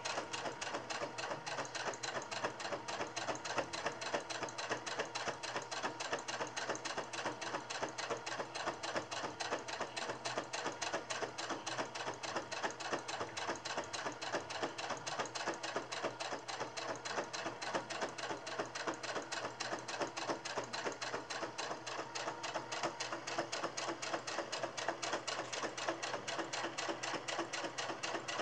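Electric domestic sewing machine running steadily, its needle stitching in a rapid, even rhythm as a narrow fabric tie is sewn together.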